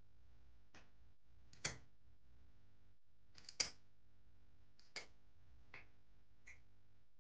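A handful of short, sharp clicks at uneven intervals over a faint quiet background, the loudest about one and a half and three and a half seconds in, then fainter ones toward the end.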